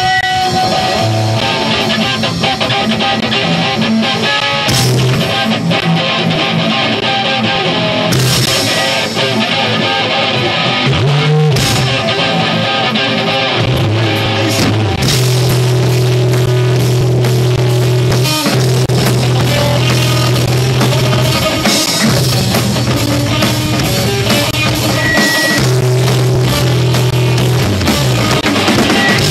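Rock trio playing live: electric guitar, bass guitar and drum kit, loud and continuous, with long held bass notes.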